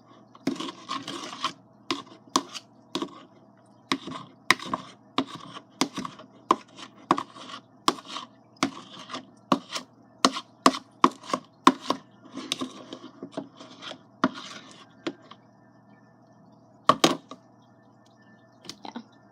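A utensil stirring clear-glue slime in a bowl as the laundry-detergent activator is mixed in, knocking and scraping against the bowl in an irregular series of sharp clicks that stops about 15 seconds in, with one last knock near the end.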